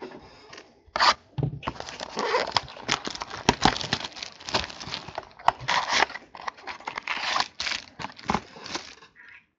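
Packaging of 2014 Topps Triple Threads baseball card boxes being torn open by hand to free the packs: irregular tearing and crinkling of wrapper and cardboard with many sharp clicks.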